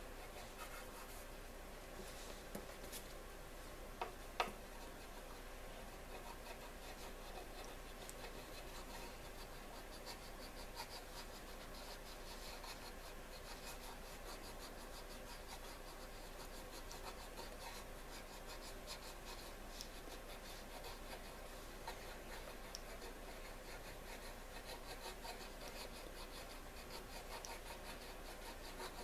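Crayon rubbing and scribbling on paper as a pig outline is coloured in, a faint steady scratching. There are two sharp taps about four seconds in.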